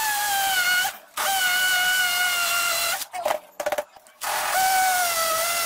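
XTITAN cordless impact drill in masonry (hammer) mode at high speed, boring into a stone in three runs with short pauses between: a high motor whine that sags slightly in pitch under load, over a steady hiss. A few brief clicks come in the longer pause.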